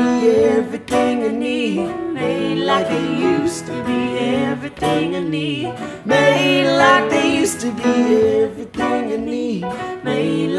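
Male and female voices singing a slow folk song together over acoustic accompaniment.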